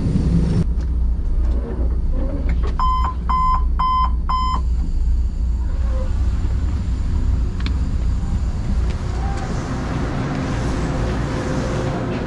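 Four short, evenly spaced electronic beeps from an EMU1200 train's door warning beeper, signalling the doors at a station stop, over the steady low hum of the stationary train.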